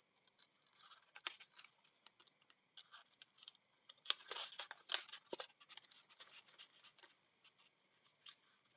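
Faint rustling, scratching and small ticks of paper being handled as a paper key strip is worked through an accordion hinge, with a busier flurry about four to five seconds in.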